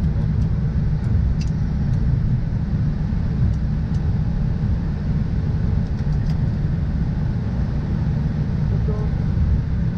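Cockpit noise of an Airbus A320 taxiing after landing: a steady low rumble from the aircraft rolling along the taxiway.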